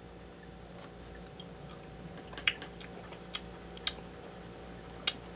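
A person eating ice cream with a metal spoon from a paper carton: quiet mouth and spoon sounds, with four sharp little clicks in the second half, over a steady low hum.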